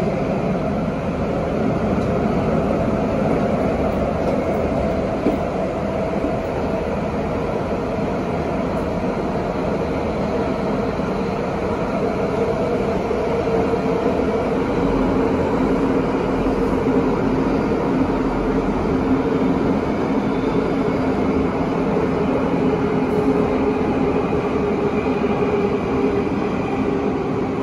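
Tokyo Metro 9000 series subway train's Mitsubishi IGBT-VVVF traction inverter and motors whining over steady wheel and running rumble, echoing in the tunnel, heard from inside the car. The whine tones drift gently lower in the second half as the train slows before its next stop.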